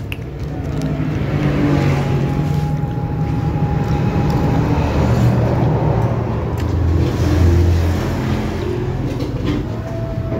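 Road traffic from the adjacent street: the low rumble of passing cars and motorbikes, swelling to its loudest about three-quarters of the way through, with a thin steady whine for a few seconds near the start.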